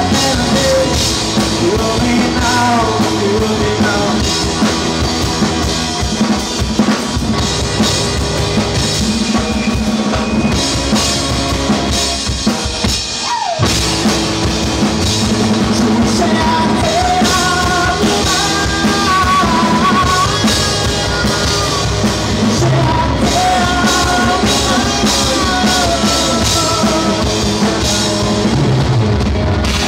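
A live rock band of electric guitar, bass guitar and drum kit playing an instrumental passage without vocals, with a short break about halfway through.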